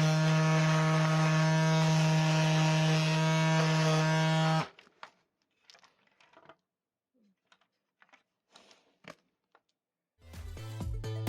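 Cordless power tool running at one steady pitch with a buzzing hiss, then cutting off abruptly about four and a half seconds in. Faint scattered clicks and taps follow before music comes in near the end.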